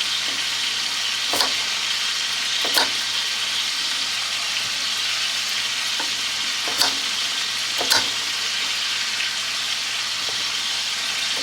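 Steady sizzle of food frying in a skillet, with four sharp knocks spread through it.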